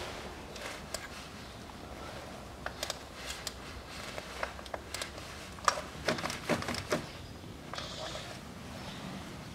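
Small, irregular metal clicks and knocks of a hand tool working a screw in the engine bay, with a cluster of louder ones from about six to seven seconds in.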